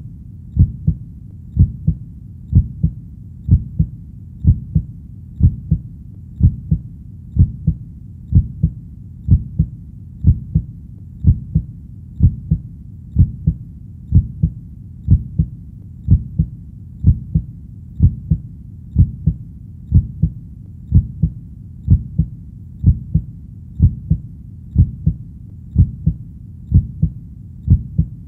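Heartbeat, a steady lub-dub: paired low, dull thuds repeating evenly about once a second, with a faint low rumble between beats.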